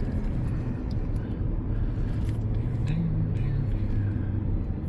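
Steady low rumble of road and engine noise inside a moving vehicle's cabin as it tows a travel trailer; the engine note rises briefly about three seconds in.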